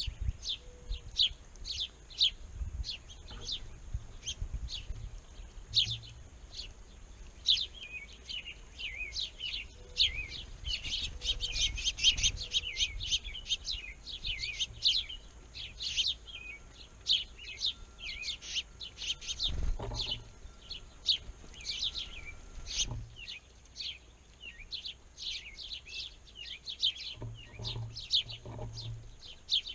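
Small birds chirping: a steady run of short, sharp chirps from several birds, busiest about ten to thirteen seconds in.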